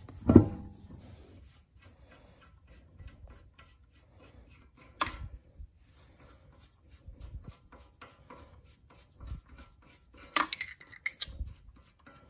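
Metal hand tools and parts clinking and knocking as they are handled and set down: a sharp knock at the start, then scattered lighter clinks and taps, with a cluster of them near the end.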